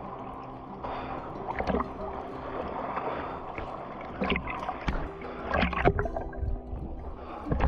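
Water splashing and sloshing over a steady background of moving water, with a few sharper splashes or knocks, the loudest about six seconds in.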